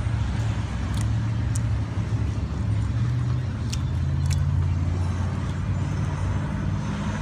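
Road traffic going by, a steady low rumble of car engines and tyres with a few faint ticks over it.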